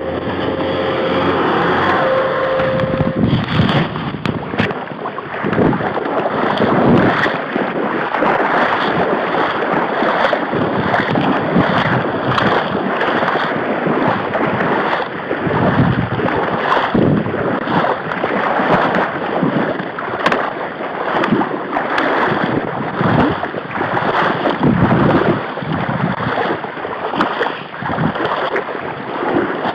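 Someone wading through shallow water and reeds: irregular splashing and swishing of stems against body and microphone, coming in uneven surges. In the first few seconds a steady engine hum from an off-road vehicle is also heard, which then stops.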